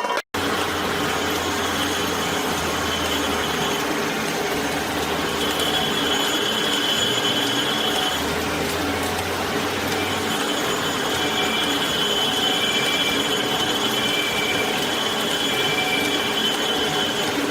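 Factory machinery in a wrench-forging workshop running steadily: a dense mechanical clatter with a high whine. About two thirds of the way in, short high tones repeat roughly every second and a half.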